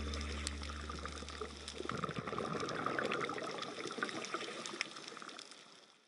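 Underwater water noise: a watery hiss with many scattered small clicks and crackles, fading out near the end. A low held tone from the music underneath stops about two seconds in.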